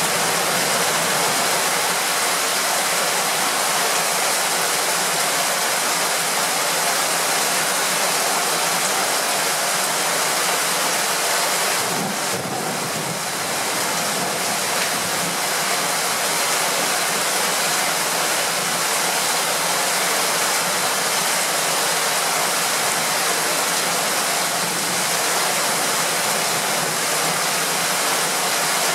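Heavy thunderstorm rain pouring down, a loud, steady, dense hiss.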